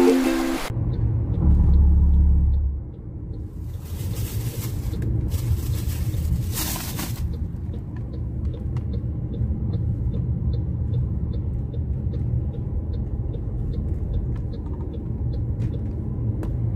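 Road noise inside a moving car's cabin: a steady low rumble of engine and tyres, heavier for a couple of seconds near the start. A faint ticking about twice a second runs through most of it.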